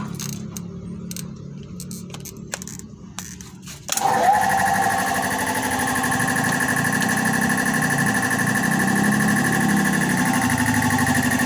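A few clicks as the three-phase plug is handled, then about four seconds in a Hitachi 3 HP three-phase air compressor starts suddenly and runs steadily with a motor hum and whine. This is the test run after wiring the RST plug.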